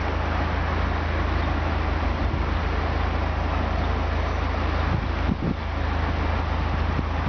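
Narrowboat's diesel engine running steadily at low cruising speed, a deep even hum with a haze of noise over it.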